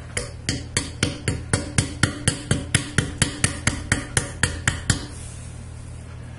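A knife hacking repeatedly at a fish's hard mouth and bones: about twenty sharp knocks at about four a second, stopping about five seconds in.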